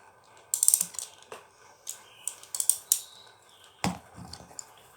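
Toy spinning top (gasing) being turned by hand, making rapid ratcheting clicks in two short bursts. A single sharp knock follows a little under four seconds in.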